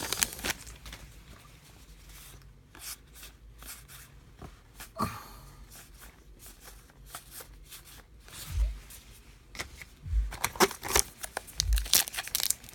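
Trading cards flicked and slid one against another as a pack of Topps Heritage baseball cards is looked through, a run of short papery slides and flicks. A few soft low bumps come in the second half, and the handling grows busier and louder near the end.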